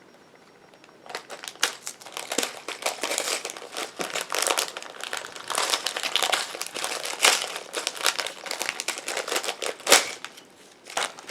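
Plastic packaging crinkling and rustling in irregular handling, with a few sharper snaps, as googly eyes are taken out of their packet.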